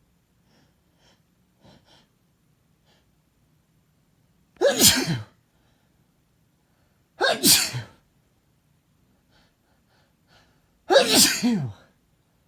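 A man sneezing three times, about two and a half to three and a half seconds apart. Each sneeze is a loud, short burst with a voiced cry that falls in pitch.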